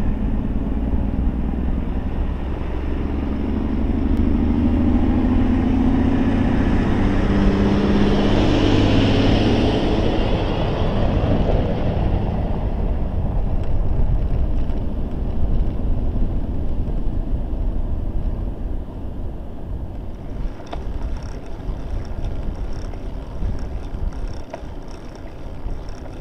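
Wind buffeting a bicycle-mounted camera's microphone, with road noise while riding. In the first half a heavy truck's diesel engine runs and climbs in pitch, loudest about ten seconds in. The last several seconds are quieter, with light rapid ticking.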